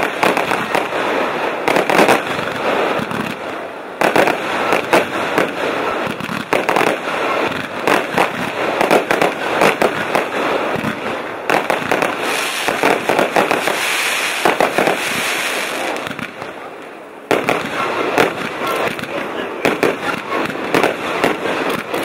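Fireworks display: aerial shells bursting in quick succession over a dense crackle of exploding stars. Around the middle a hissing crackle stands out. About three quarters through it dips briefly, then starts again with a sudden loud burst.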